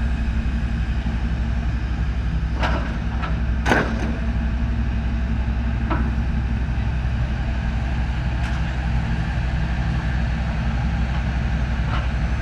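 Long-reach demolition excavator's diesel engine running at a steady drone, with several sharp knocks from the working machine; the loudest comes a little under four seconds in.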